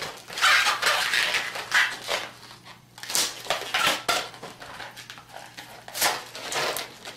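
Latex modelling balloons squeaking and rubbing against each other and the hands as they are handled and pulled apart, in a string of short irregular bursts that are loudest in the first two seconds.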